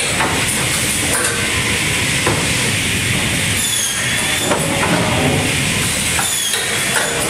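Automatic lumber stacking machine running: a steady mechanical rumble and hiss with scattered clattering knocks and a few brief high squeals.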